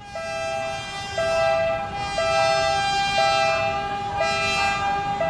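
Locomotive horn sounding in one long unbroken blast, growing louder as the train approaches. Under it, a separate tone starts about once a second, fitting a level-crossing warning signal.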